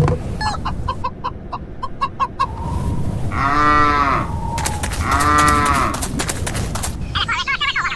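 Farm animals calling: a hen clucking in short repeated notes, then two long rising-and-falling moos, with birds chirping near the end.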